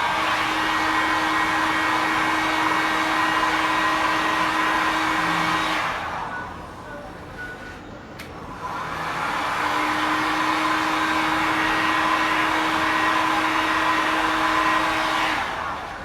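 Electric hot-air blower running steadily with a hum, force-drying freshly brushed touch-up paint; it winds down about six seconds in, starts again about three seconds later, and winds down once more near the end.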